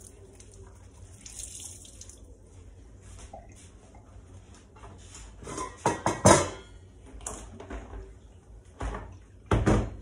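A damp cloth wiping a kitchen counter in strokes, then a stainless steel pot and its lid clattering as they are moved about six seconds in, with another knock near the end.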